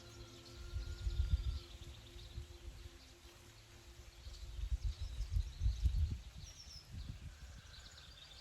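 Woodland ambience with small birds chirping, and two spells of low rumbling, about a second in and again around five seconds in.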